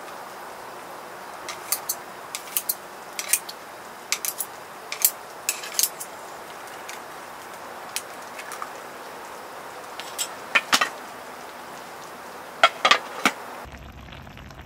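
Metal chopsticks clicking and clinking against a Skeppshult cast-iron pan as ramen and soft tofu are stirred, in scattered sharp taps over a steady hiss. The loudest clinks come in a quick cluster near the end.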